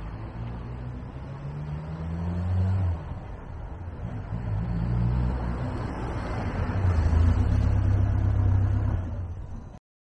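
1987 Ford Thunderbird Turbo Coupe's 2.3-litre turbocharged four-cylinder engine accelerating as the car drives up. The engine note rises, drops about three seconds in, then climbs again and is loudest near the end as the car draws close, before cutting off suddenly.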